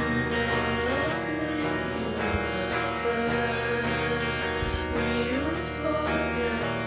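Background music with sustained melodic notes, some of them sliding slowly in pitch.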